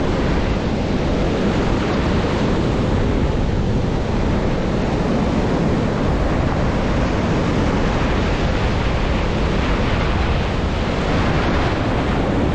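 Ocean surf breaking and foaming wash running over shallow sand, with wind buffeting the microphone.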